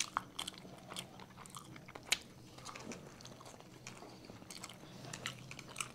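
People chewing mouthfuls of momo burger, a soft bun with momos inside: faint wet mouth clicks and smacks, with one sharper click about two seconds in.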